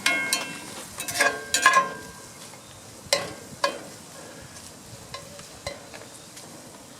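Metal utensil stirring and scraping ground sausage in a seasoned pan on a grill, with sharp ringing clanks against the pan over a faint sizzle. The clanks come thick in the first two seconds, twice more about three seconds in, then fainter and sparser.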